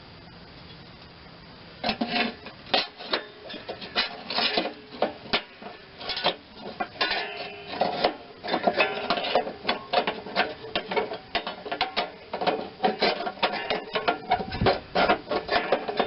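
Metal parts and hand tools clinking, tapping and rattling against the steel mower deck: quick irregular clicks and knocks with a short metallic ring. They start about two seconds in and keep on busily.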